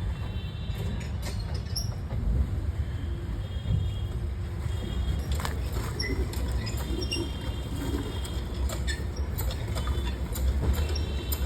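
2013 petrol Suzuki Swift engine running with a steady low rumble and irregular sharp ticks over it; the title puts the abnormal engine sound down to a spark plug fault.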